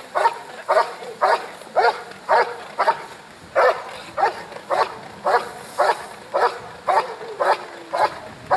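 Airedale Terrier barking steadily at the helper in the blind, about two barks a second: the hold-and-bark of an IPO protection routine.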